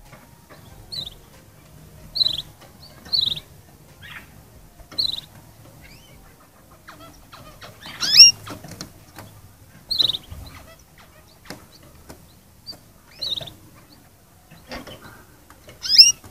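Young canaries chirping: short, high notes that slide down, every second or two. Two louder, longer calls with gliding pitch come about eight seconds in and again near the end.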